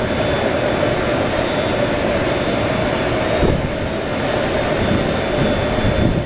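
Light rail train pulling away from the platform: a steady running rumble with a faint, even motor hum.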